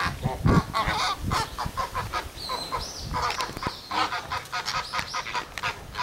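A flock of flamingos honking, a rapid run of short, harsh "gah, gah" calls overlapping one another. A low thump comes about half a second in.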